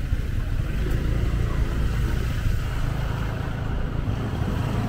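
Motorbike engine running steadily at low speed in slow road traffic, a constant low drone, with the surrounding traffic mixed in.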